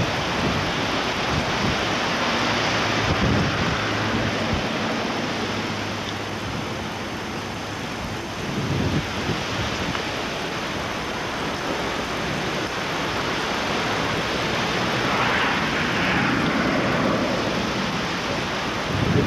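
Wind buffeting a camcorder microphone: a steady rushing noise with a few low rumbling gusts.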